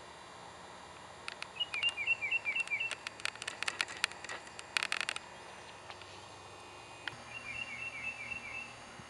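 A songbird singing two short phrases of quick, paired downslurred chirps, about four a second, one early and one near the end. Between them comes a run of sharp clicks and ticks that grows denser and stops about five seconds in.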